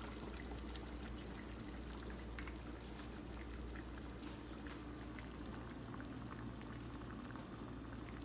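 Pot of toasted rice and water simmering on a stove burner: faint steady bubbling with small scattered pops, over a low steady hum.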